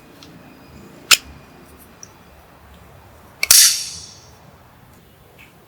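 A sharp click about a second in, then near the middle another click followed by a short burst of hiss that fades away over about a second.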